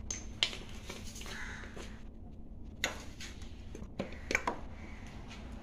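A handful of short, sharp clicks and knocks, spread unevenly over several seconds, over a faint steady low hum.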